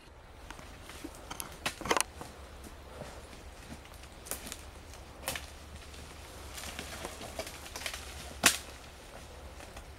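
Twigs and brush snapping and crackling underfoot as people push through dense undergrowth. It comes as scattered short snaps, a small cluster about two seconds in and the loudest single crack near the end.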